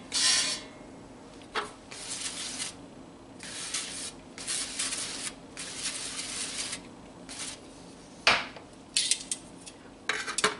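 Avocado oil spray can hissing in a series of short bursts as it coats floured chicken thighs, with a single sharp knock about eight seconds in.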